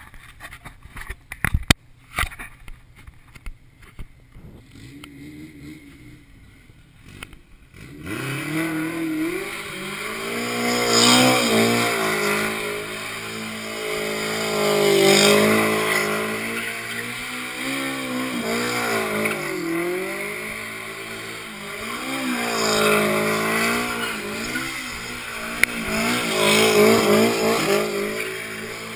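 Turbocharged Honda K24 four-cylinder of a mid-engined 1991 CRX revving hard through donuts, its pitch rising and falling over and over as the rear tyres spin and squeal on asphalt. It is faint for the first several seconds, with a few sharp knocks near the start, and turns loud about eight seconds in.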